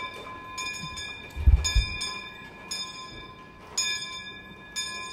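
A bell tolling about once a second, each stroke ringing on into the next. There is a short low thump about a second and a half in.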